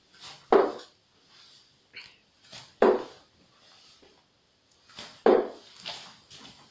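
Three darts thudding into a dartboard one after another, about two and a half seconds apart.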